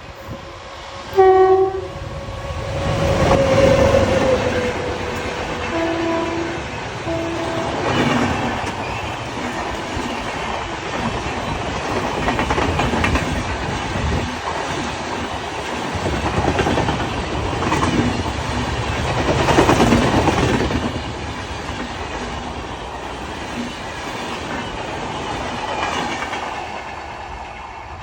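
Indian Railways express train running, its coaches rattling and clattering loudly over the rails in repeated swells. A short horn blast sounds about a second in, and two brief horn toots come around six to seven seconds in.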